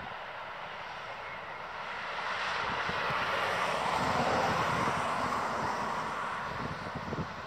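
Road traffic passing close by: tyre and engine noise swelling to a peak about four seconds in, then fading away.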